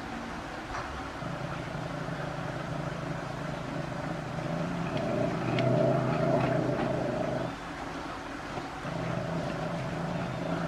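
An engine running steadily, its hum swelling for a couple of seconds past the middle and dropping away briefly before coming back. Faint clicks ride over it as the ocelot cub chews raw chicken.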